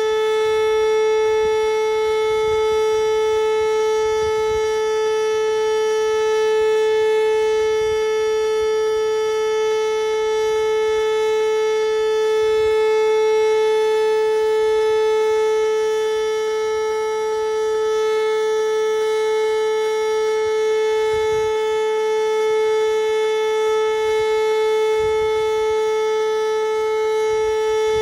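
Outdoor tornado warning siren sounding one long steady tone, held at a single pitch without rising or falling, its loudness swelling and easing slightly.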